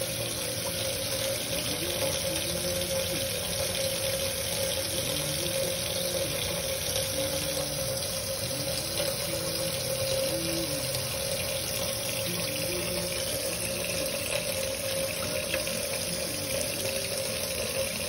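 Kitchen tap running steadily into a stainless-steel sink.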